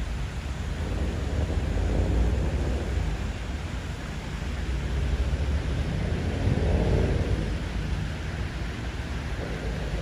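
Outdoor city ambience: a steady low rumble of traffic that swells twice, about two seconds in and again near seven seconds, as vehicles pass.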